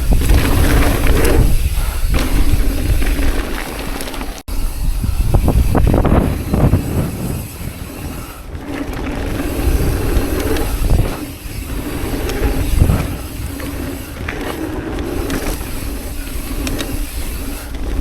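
Wind buffeting a chest-mounted camera's microphone while an electric mountain bike rides a dirt jump trail. It makes a heavy rumble, with a hum and tyre noise underneath that swell and fade. The sound cuts out for an instant about four seconds in.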